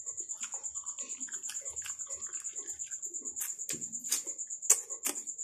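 Wet chewing and lip-smacking while eating soft, ripe jackfruit bulbs, with several sharper smacks in the second half. A steady, high-pitched pulsing tone runs underneath.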